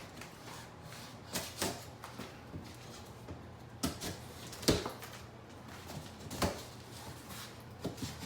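Handling noise from unboxing a receiver: about six scattered knocks and taps, the loudest a little past the middle.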